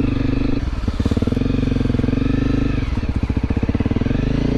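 Honda CRF250L Rally's 250 cc single-cylinder engine running at low trail speed, chugging so that its separate firing pulses are heard about half a second in and again about three seconds in.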